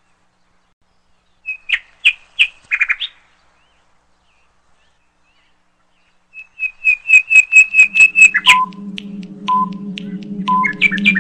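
Quiz sound effects: a few short chirping whistle notes, then, after a pause, a fast run of high chirps that ends about three quarters of the way in. Then a countdown timer starts beeping once a second over a low steady drone.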